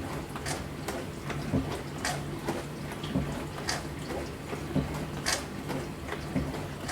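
Dishwasher running its wash cycle: a steady pump hum, with water spray swishing inside about every second and a half, alternating with low thuds.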